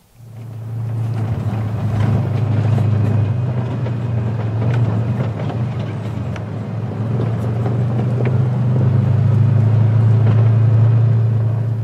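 Side-by-side UTV engine running with a steady low drone while driving along a gravel track, with tyre noise and scattered light ticks. It grows a little louder near the end.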